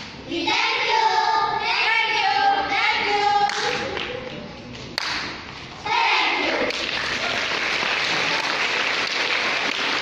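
Children's choir singing a held closing line together, fading out about three and a half seconds in. After a brief voice near six seconds, the audience breaks into steady applause.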